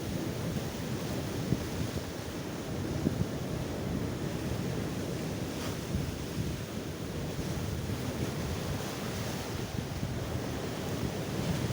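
Sea waves surging and breaking on the shore, with wind buffeting the microphone.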